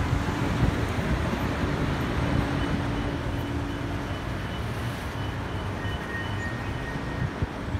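Road traffic on a city street: a steady hum of vehicles, with one engine tone that fades out about halfway through.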